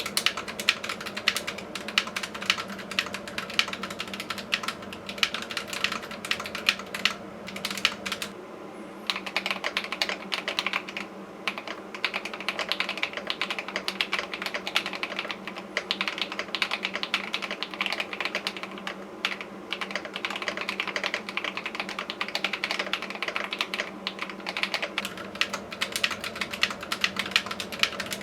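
Typing on a Tecware Veil 87 tenkeyless mechanical keyboard with Akko Cream Blue v3 tactile switches: a fast, continuous run of keystrokes, with a brief pause about eight seconds in.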